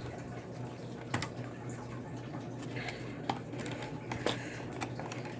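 A few scattered light clicks and taps of laptop parts being handled during reassembly, over a steady low hum.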